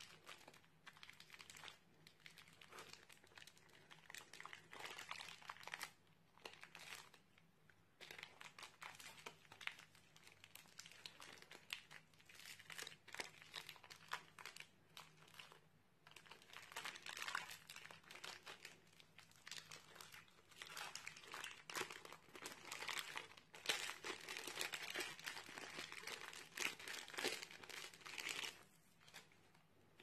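Crunchy, bubbly slime being pressed and squished by hand: a faint, irregular run of crackles and pops that grows busier in the second half.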